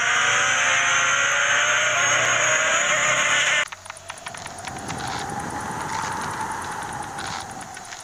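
Loud buzzing drone of insects in flight, with wavering tones over a rushing hiss. It stops suddenly about three and a half seconds in, leaving a much quieter, steady hiss with faint ticks.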